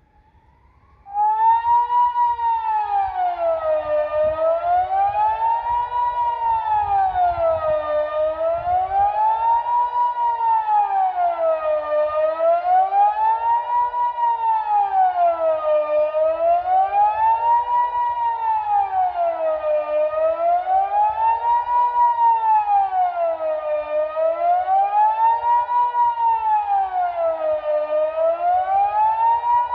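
Kockum Sonics Delta 6 - AT electronic civil-defence siren sounding the Swiss 'General Alarm' signal. It is a single tone that sweeps steadily up and down, about one rise and fall every four seconds. It starts about a second in, rising quickly to full level.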